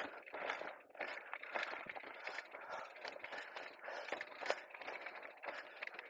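E-mountain bike riding down a rough, rocky singletrail: tyres scraping and crunching over stones while the bike rattles and clicks, with a few brief high squeaks.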